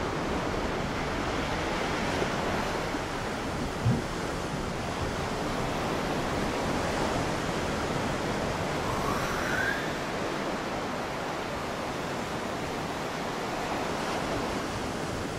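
Sea surf rushing steadily against shore rocks, a continuous even wash. A single thump comes about four seconds in, and a short faint rising whistle a little after nine seconds.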